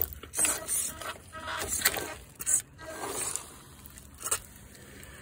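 Irregular scraping and rustling noises, several in the first three seconds, then a single short sharp one a little past four seconds before it quietens.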